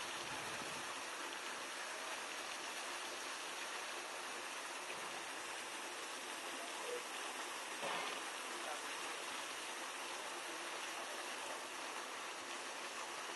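Steady hiss of water spraying from a hose over an African elephant's back and falling on the wet ground, with a brief louder surge about eight seconds in.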